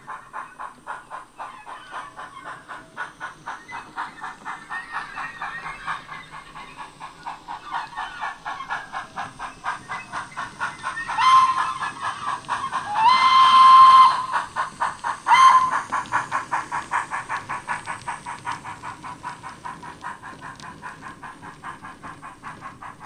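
Steam locomotive sound from a DCC sound decoder in a model steam tank engine, playing through its small on-board speaker: steady rhythmic chuffing as it runs. About halfway through, the whistle sounds a short blast, a longer held blast, then another short blast.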